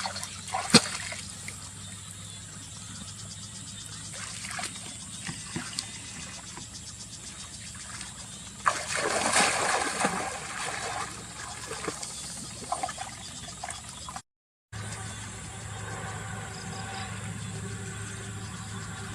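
Water trickling and splashing during fishing, with scattered clicks and a louder splash about nine seconds in. After a brief dropout, a steady hum.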